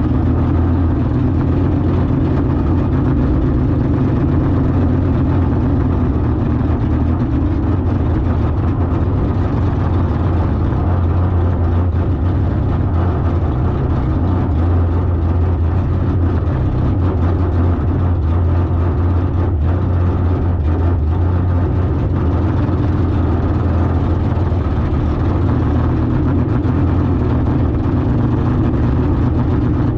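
Car engine idling at a steady, even pitch.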